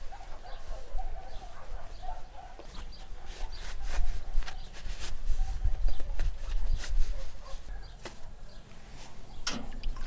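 Chickens clucking in the background, strongest in the first few seconds, over scattered rustles and clicks of cloth being handled as an oven mitt is pulled on.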